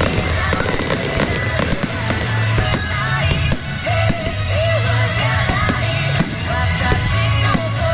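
Music with a steady bass line, and fireworks going off over it with scattered bangs and crackles.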